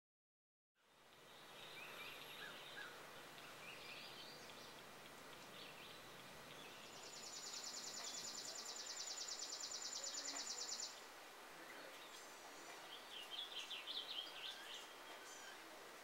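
Quiet outdoor ambience with scattered bird chirps. A high, even, buzzing trill runs for about four seconds midway and is the loudest sound, followed near the end by a quick run of chips.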